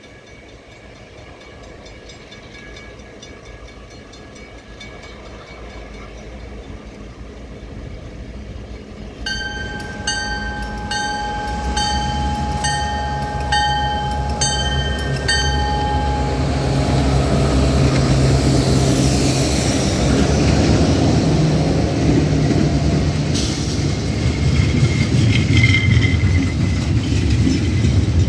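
CN diesel freight train approaching and passing close by: a bell rings in quick, even strokes as the locomotive nears, the locomotive's engine rumble swells and goes by, then the loud, steady rumble and clatter of open-top gondola cars rolling past, with a brief high wheel squeal near the end.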